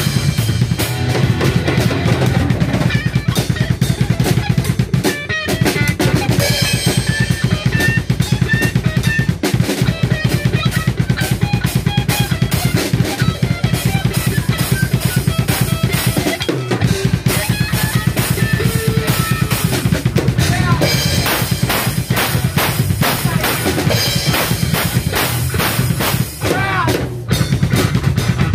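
A band playing loud, fast heavy music live: a drum kit hit in rapid, driving strokes together with electric guitar, with short breaks about five and seventeen seconds in.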